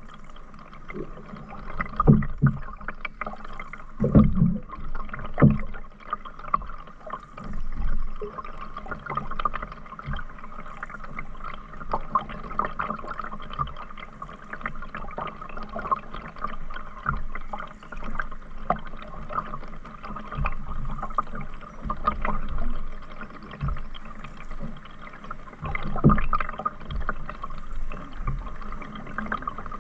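Canoe paddling: paddle strokes in the water with gurgling and dripping. Irregular low knocks come now and then, the loudest a few seconds in and again near the end.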